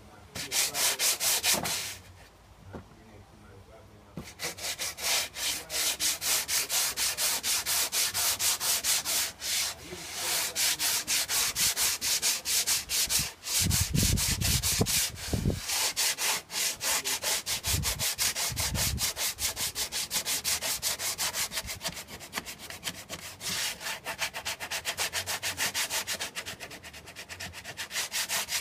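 Sandpaper on a hand sanding block rubbing back and forth over a car's painted fender, in quick regular strokes of about three a second, with a short pause about two seconds in.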